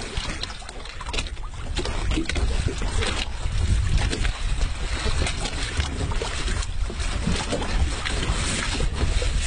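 Boat at sea: a steady low rumble with wind on the microphone and scattered knocks.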